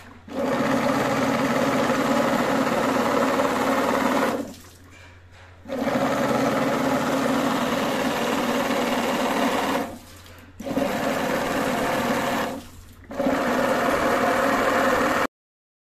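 Homemade belt-driven water pump running: a 775 DC motor turning a bicycle-hub pulley and impeller in a PVC-pipe housing gives a steady, loud whine. The whine cuts out briefly three times and stops abruptly near the end.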